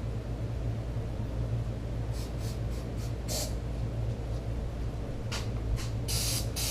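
Hands working grip-kit parts onto a dirt bike handlebar: several short scraping rustles, the longest about six seconds in, over a steady low hum.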